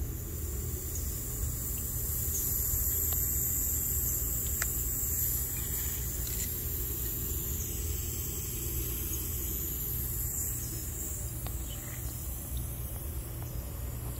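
Pop-up sprinkler head spraying thin streams of water, a steady hiss, over a low steady rumble.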